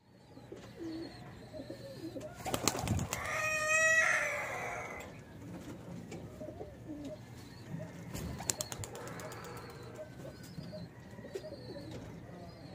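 Domestic pigeons cooing among other bird calls, with a louder drawn-out call about three seconds in and two short clusters of sharp clicks.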